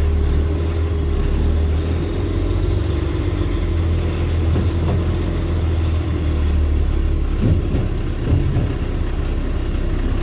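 Dump truck's diesel engine running slowly, heard inside the cab as the truck creeps forward onto a scale. The steady low drone eases about seven seconds in, with a couple of short knocks soon after.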